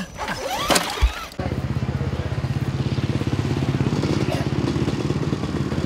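A brief voice and a thump, then from about a second and a half in an engine running steadily with an even, low pulse.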